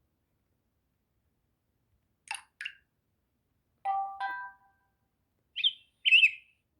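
Short stock tones from a Samsung Galaxy Tab 3: after a silence, two quick high blips, then a two-note ding-dong chime, then two short chirps that bend in pitch.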